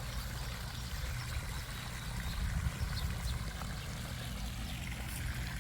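Wind rumbling and buffeting on the microphone outdoors: a steady, noisy low rumble that swells a little in the middle.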